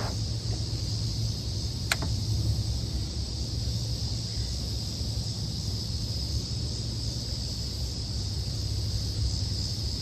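Wind rumbling on the microphone over a steady high drone of insects, with a single sharp click about two seconds in.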